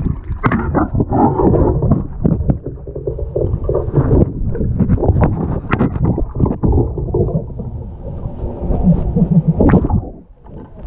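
Water sloshing and gurgling right at the microphone, a camera held at or just under the water's surface, with irregular splashes; it drops away briefly near the end.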